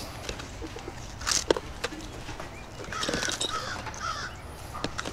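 A crow cawing three or four times in quick succession, with a brief rustle and a sharp click of handling a little before.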